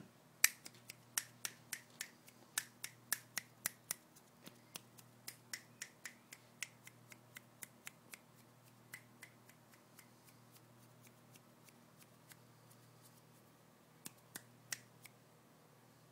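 A person making a run of sharp clicks, about three a second, growing fainter and sparser after several seconds, then three more clicks near the end. A faint steady low hum lies underneath.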